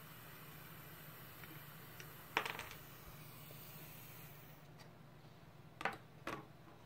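Small plastic clicks from handling a circuit board as a green plug-in power connector is pulled off it and set down: a short clatter of clicks about two and a half seconds in, then two light clicks near the end, over a faint steady hiss.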